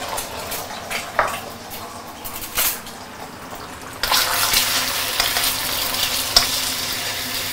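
Eggs frying in hot oil in a stainless steel wok, sizzling, with a few light clicks in the first half. About four seconds in the sizzle suddenly gets louder, and the eggs are stirred toward the end.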